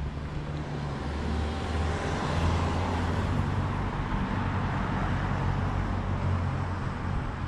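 Road traffic: a motor vehicle's engine hum and tyre noise, growing louder over the first couple of seconds and then holding steady.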